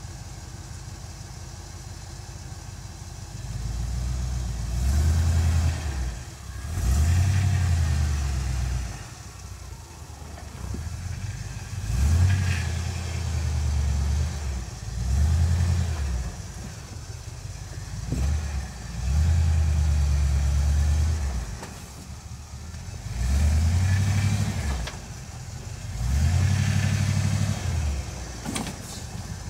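Jeep CJ5 engine idling, then revving again and again in short surges as it crawls up over rocks under load. A few sharp knocks come between the surges.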